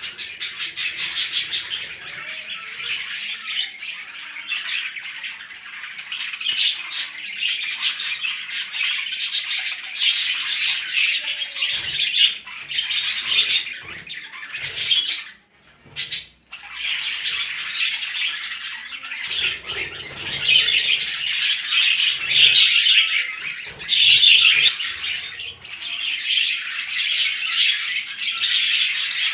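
A flock of budgerigars chattering and squawking together without a break, dozens of overlapping high calls; the chatter cuts out for about a second around the middle.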